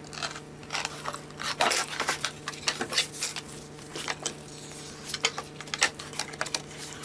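Handling noises of masking tape, wooden slats and a glue bottle being worked on a tabletop: scattered small clicks, crackles and rustles, over a faint steady electrical hum.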